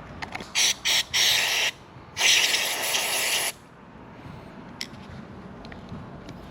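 Aerosol electronics cleaner sprayed into a motorcycle turn-signal switch assembly: three short hissing bursts, then one longer burst of just over a second, flushing out dried, gummy grease.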